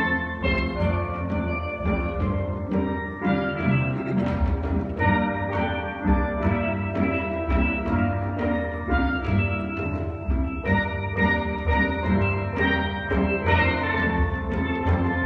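Steel band of tenor, mid-range and bass steel pans playing a soca piece: many quick mallet-struck ringing notes over a steady rhythm.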